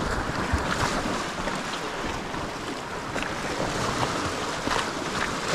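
Sea surf washing and breaking against the rocks in a steady rush, with wind buffeting the microphone.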